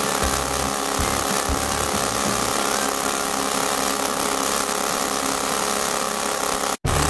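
Miniature supercharged V8 engine of an RC boat running steadily with a dense, high mechanical whine. The sound cuts out for an instant near the end.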